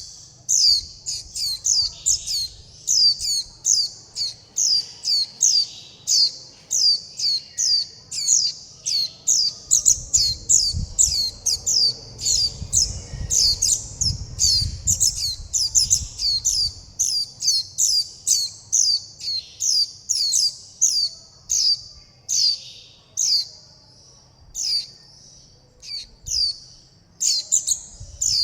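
Juvenile white-eyes giving their high begging and contact calls, short falling notes repeated two or three times a second without pause: fledglings calling for the parent and for food.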